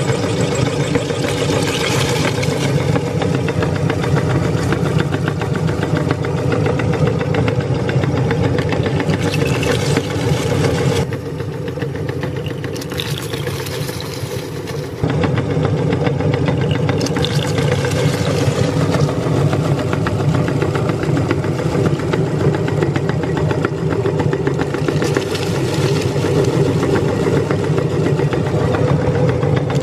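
Electric meat grinder running with a steady motor hum and a rough grinding noise as hard crunchy cookies are forced through its plate. For a few seconds in the middle the grinding noise drops away and the hum runs on its own, while the feed throat is empty.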